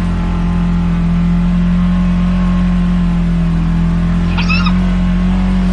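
Side-by-side UTV engine running steadily at a constant pitch while driving on an off-road trail. A brief high squeak about four and a half seconds in.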